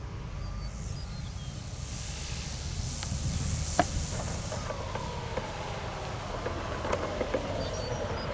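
Large electric RC airplane with a brushless motor flying, its faint motor and propeller whine falling in pitch over a low rumble of wind on the microphone. A rushing hiss swells and fades a couple of seconds in, and there are two sharp clicks.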